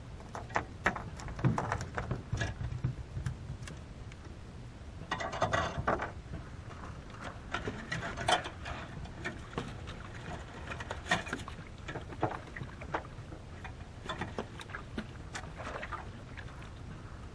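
Irregular clicks and knocks of fishing gear being handled on a small boat's wooden deck, with a short rushing noise about five seconds in, over a low steady rumble.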